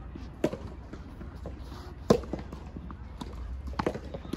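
Soft tennis rubber ball struck by rackets in a rally: two sharp pops about a second and a half apart, then a few lighter knocks near the end.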